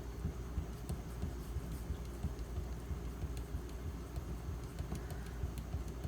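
Knife blade stroked along a 4000-grit bonded diamond stone: a dull, low, uneven scrubbing with a few faint ticks. The stone is soft and rubbery and gives very little audible feedback.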